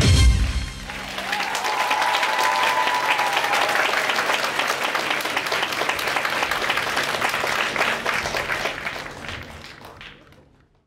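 Performance music stops at the start and an audience breaks into steady applause, with one long high call from the crowd in the first few seconds; the clapping fades out near the end.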